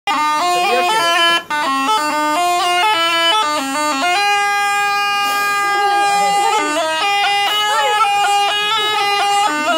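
Snake charmer's pungi (been), a gourd wind instrument with reed pipes, played without pause: a melody of quick changing notes, broken once for a moment about a second and a half in, then one long held note from about four to seven seconds in before the quick notes resume.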